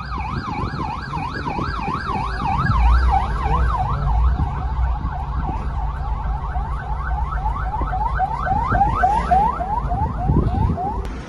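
Ambulance siren sounding a fast up-and-down yelp, its sweeps turning into quicker rising whoops near the end before it stops. A low rumble of traffic runs underneath.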